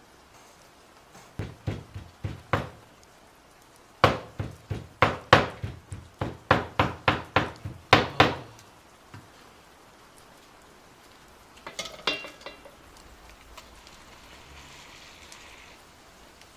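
Heavy knocks on a kitchen work surface: five strikes, a short pause, then a quick run of about a dozen more. Near the end, a brief clatter of dishes or utensils with a short ring.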